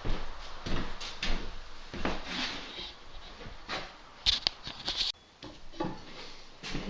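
Scattered light knocks, clicks and a few brief scrapes of a spirit level and tools being handled and set down on a shower tray.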